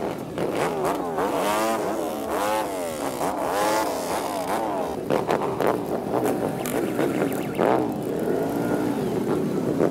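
Several motorcycles and three-wheelers, including a Can-Am Spyder, riding past one after another, their engines revving up and down and overlapping as each goes by.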